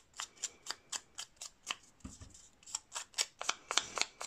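A foam finger-sponge ink dauber pats ink onto the edges of a die-cut cardstock label, darkening them. It makes short, dry taps on the paper at about four a second.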